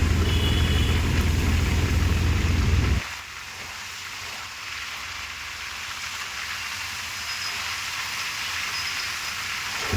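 Heavy rain falling with a steady hiss. For the first three seconds a loud low rumble runs under it, then cuts off suddenly.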